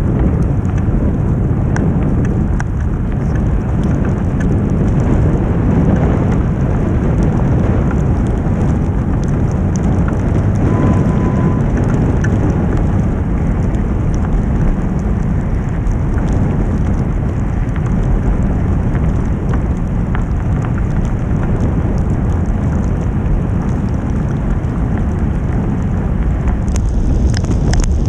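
Snowstorm wind buffeting the microphone of a camera on a moving bicycle: a loud, steady low rumble.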